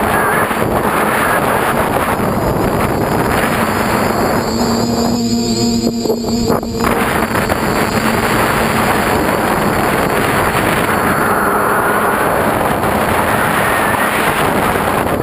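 Dead Cat 450 quadcopter's electric motors and propellers whirring in flight, heard from the onboard camera with wind rushing over its microphone. A humming motor tone comes forward for a couple of seconds midway.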